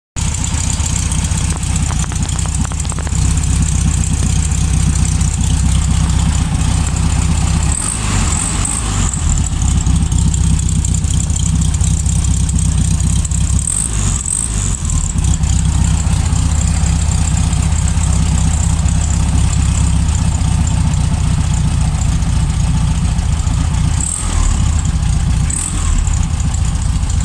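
Volkswagen Fuscão 1500's air-cooled flat-four engine idling steadily through its original exhaust, its note briefly changing a few times.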